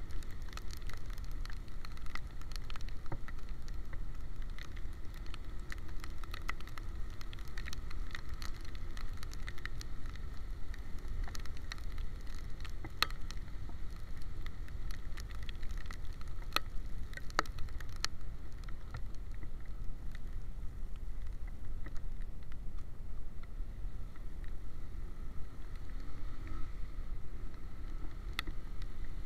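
Motorcycle riding in the rain, heard from a camera on its handlebars: steady wind noise on the microphone over a faint engine hum, with scattered small clicks of raindrops hitting the camera.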